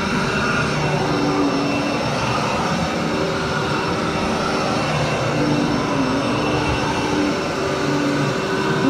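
Commercial upright vacuum cleaner running steadily as it is pushed over soiled carpet, pre-vacuuming dry soil before the carpet is cleaned. Its motor drone is even throughout, with a hum that wavers slightly in pitch.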